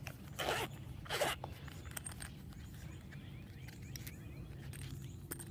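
Two short rustles about half a second and a second in, then faint scraping and light clicks of something being handled close to the microphone.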